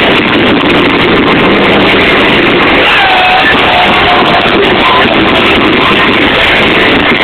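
Live post-hardcore band playing loud amplified rock, heard as a dense, smeared wall of guitars and drums from an overloaded recording in the crowd.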